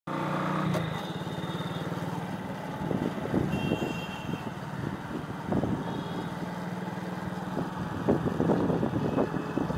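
Motorcycle engine running at a steady pace while riding, with road rumble and a few bumps.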